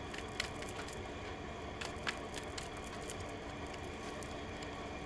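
Tarot cards being shuffled and handled, with scattered light flicks and taps over a steady background hum.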